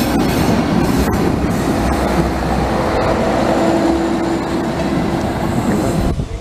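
Passenger train rolling past at close range: a steady rumble of wheels on rail, with a steady whine in the middle. The noise drops away abruptly near the end.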